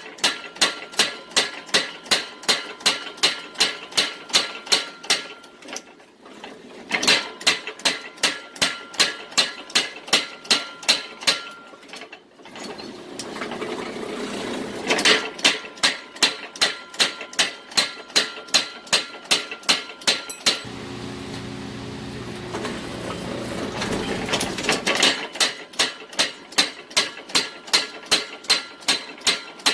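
Blacksmith's hammer striking hot steel on an anvil, about three ringing blows a second, in runs with short pauses: forging out a spring from 5160 spring steel. About two-thirds of the way through, the hammering stops for a few seconds and a steady running noise is heard before the blows resume.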